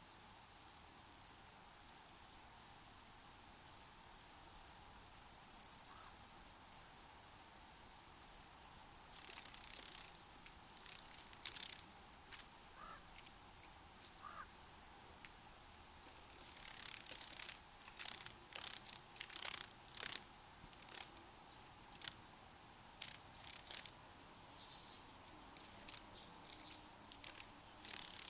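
Faint desert night ambience: a cricket chirping, a thin high note pulsing about three times a second, over a steady soft hiss. From about a third of the way in, clusters of short, sharp, high rasping bursts come and go.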